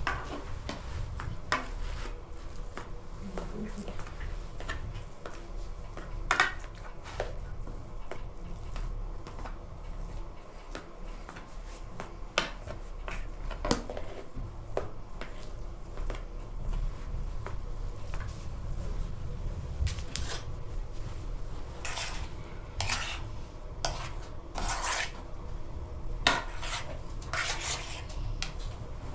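Dishes and metal utensils clinking and knocking as they are handled, in scattered strikes that come thicker near the end, over a steady low rumble.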